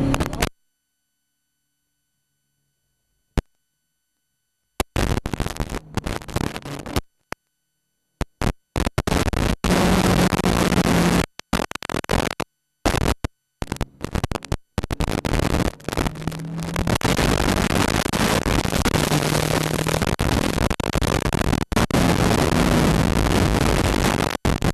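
Broken-up onboard recording audio: dead silence for about four seconds with a single click, then loud, harsh static hiss that keeps cutting out and coming back, with a faint low drone showing through it in places.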